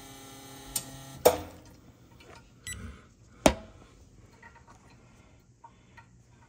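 Espresso machine's pump humming steadily as the shot ends, then stopping about a second in with a sharp knock. A second loud knock follows a couple of seconds later, then a few faint clicks and clinks of metal and glass.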